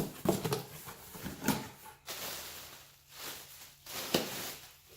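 A cardboard subwoofer box being handled, with a few sharp knocks and stretches of scraping and sliding against it.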